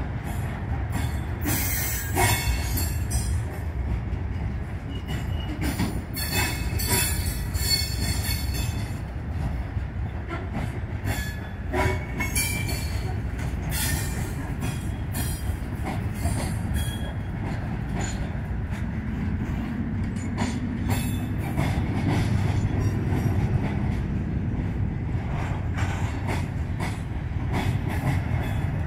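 Covered hopper cars of a long freight train rolling past close by: a steady low rumble with irregular clicks and clanks of the wheels over rail joints, and brief wheel squeals now and then.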